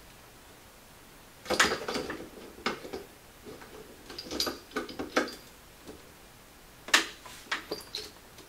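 Metal clicks and clacks of the Atibal TPM quick-release scope mount being set onto the rifle's top rail and locked down. There is a loud clatter about a second and a half in, scattered smaller clicks after it, and one sharp snap near the end.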